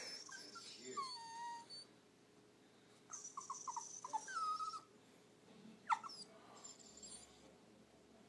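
Dachshund whining and whimpering in thin, high, gliding tones, in spells: a drawn-out whine at the start, a run of short quick whimpers around the middle, and one sharp falling whine about six seconds in. The dog is sore from its yearly vaccinations.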